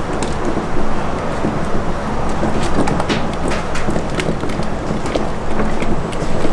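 Wooden turning stick knocking and scraping against a pot as thickening amala paste is turned, many sharp irregular knocks, busier from about halfway, over a steady loud rushing rumble with a low hum.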